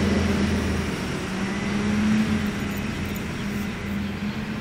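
Road traffic: a motor vehicle's low engine hum fading about a second in, over a steady wash of traffic noise.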